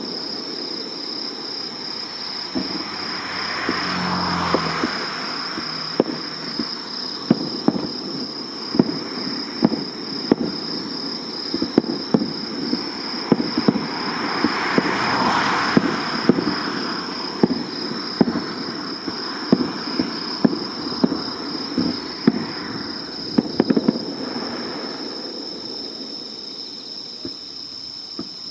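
Fireworks display: a rapid, irregular series of sharp bangs from bursting shells, with two swells of hissing crackle, one about three seconds in and one about halfway through.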